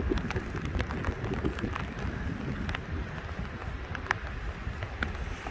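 Wind buffeting the microphone in heavy rain, a steady low rumble with scattered small ticks of raindrops striking the wet camera.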